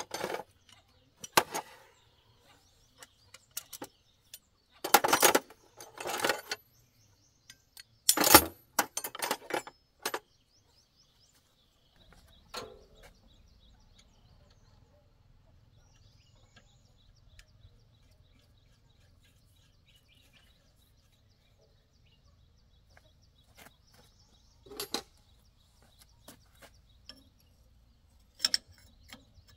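Steel hand tools clanking and jangling as they are sorted and pulled from a metal toolbox, with a cluster of sharp metallic clanks in the first ten seconds. Later there are a few isolated taps and clicks of tools on the tractor engine, with birds chirping faintly.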